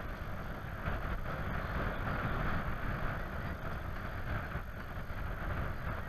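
A distant flock of snow geese calling as one steady massed chatter, with wind rumbling on the microphone.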